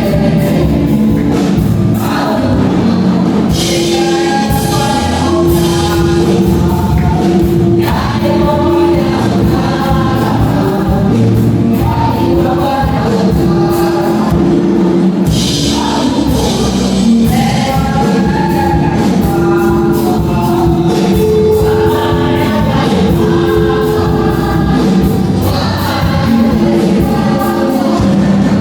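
Gospel choir singing with musical accompaniment, held sung notes over a steady beat.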